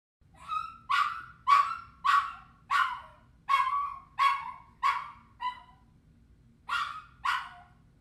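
Dog whining in short, repeated high cries, about nine in quick succession, a pause, then two more near the end.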